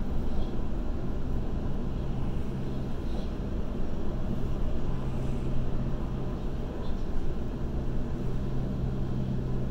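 Waratah A set electric train running between stations: a steady low hum over the rumble of wheels on track, with a few faint short high chirps.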